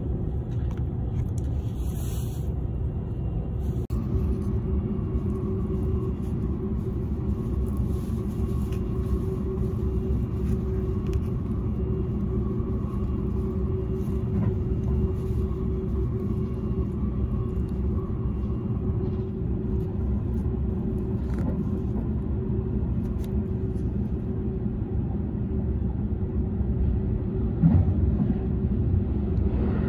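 Cabin noise of a Seibu Laview limited express train running along the line: a steady low rumble with a faint steady hum above it, and a brief louder bump near the end.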